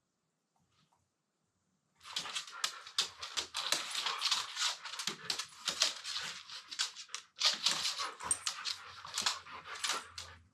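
Siberian huskies play-wrestling: a dense run of rapid, breathy dog noises and scuffling that starts about two seconds in after near silence and stops abruptly near the end.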